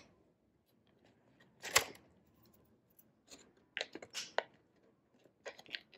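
Faint handling of a printed-paper model being pressed and held together at its glued tabs: a few short paper crinkles and taps, a sharper one about two seconds in, a cluster a little later, and two more near the end.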